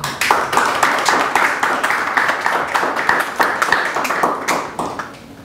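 Audience applauding: a dense burst of hand claps that starts suddenly and dies away near the end.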